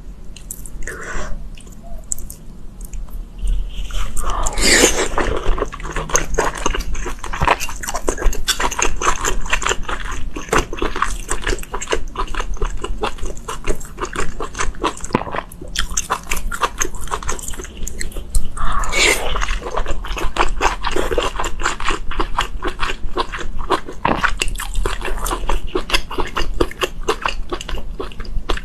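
Close-miked chewing and biting: a dense, quick run of wet, crunchy mouth clicks, with louder bites or slurps about five seconds in and again near nineteen seconds.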